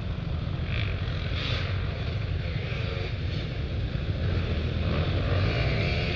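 Off-road dirt bike engines running and revving through the wooded hare scramble course, with a steady low rumble that grows a little louder in the second half as bikes come closer.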